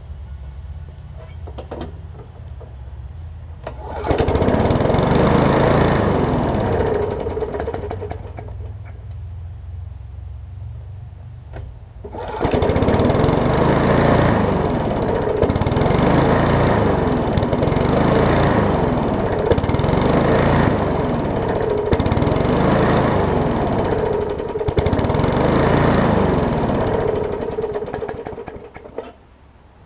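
Briggs & Stratton Classic push-mower engine started; it runs a few seconds and dies away. It is started again about twelve seconds in and runs unevenly, speeding up and slowing down about every second and a half until it stops near the end. This hunting is what the owner calls a classic diaphragm issue: the carburetor diaphragm needs replacing.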